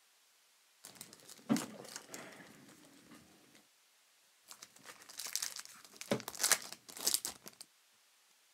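A foil trading-card pack wrapper being crinkled and torn open by gloved hands, in two bouts of crackling, each with one sharp loud crackle.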